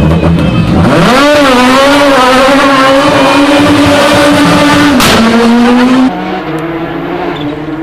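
Rally car engine revving hard as the car accelerates along a special stage. The pitch climbs steeply about a second in and is held high, with an upshift about five seconds in. The sound then drops sharply in level as the car pulls away.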